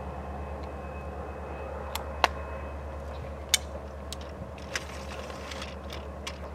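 A low, steady rumble that slowly fades, with several sharp clicks from about two seconds in, the loudest a little after two seconds and another about three and a half seconds in.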